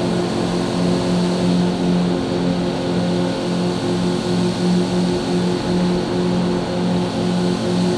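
Yamaha outboard motor running steadily with the boat on the plane, a constant engine drone over the rush of wake water and wind.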